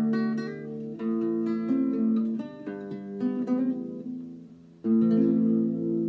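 Solo acoustic guitar playing a slow, folk-style improvised tune in single plucked notes that fade, then a chord struck about five seconds in and left ringing.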